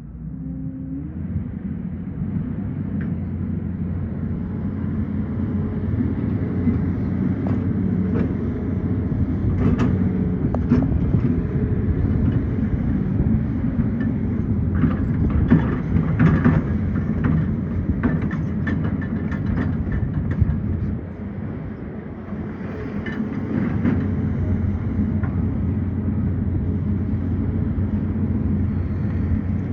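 Excavator's diesel engine running steadily under load, with scattered sharp knocks and scrapes in the middle stretch. The engine drops back briefly a little past two-thirds in, then picks up again.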